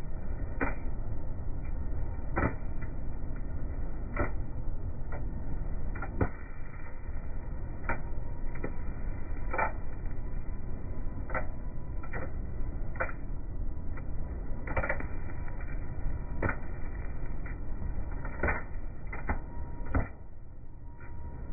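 Rail flash butt welding machine in its flashing stage: a steady low hum and crackle from the arcing steel rail ends, broken by sharp cracks every second or so as molten metal is thrown out in sparks. The noise drops sharply about twenty seconds in.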